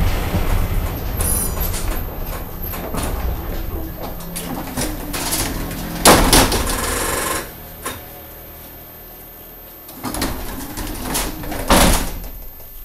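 Articulated tram's running rumble and rattle dying away as it comes to a stop, then its passenger doors working: a sudden clatter and hiss as they open about six seconds in, and a loud thump as they close near the end.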